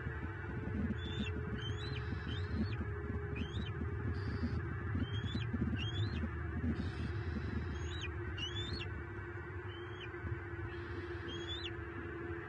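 Small birds calling at a bald eagle nest: about a dozen short, sharp chirps that rise quickly in pitch, in groups of two or three, likely harassment calls from birds driving an eagle off the nest tree. Underneath is a steady low rumble of wind on the microphone and a faint steady hum.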